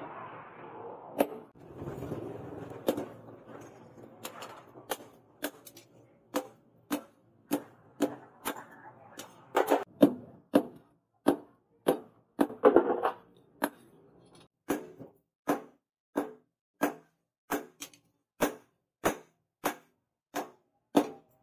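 A hand hammer forging red-hot leaf-spring steel on a steel post anvil: a steady run of sharp metallic blows, about three every two seconds, each with a short ring. A rushing noise lies under the first few blows.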